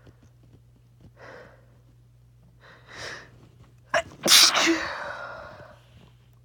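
A person sneezing: two short breaths, then one loud sneeze about four seconds in that trails off over a second and a half.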